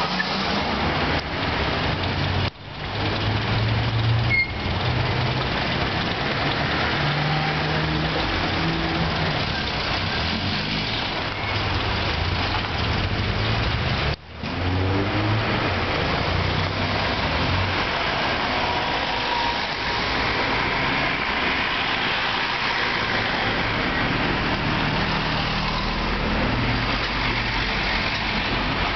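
Road traffic: car engines running as vehicles pass slowly and wait, with a low engine drone throughout. The sound drops out briefly twice.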